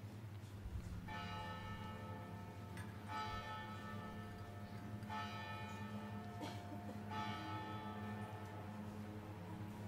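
A church bell struck four times, about two seconds apart, each stroke ringing on until the next.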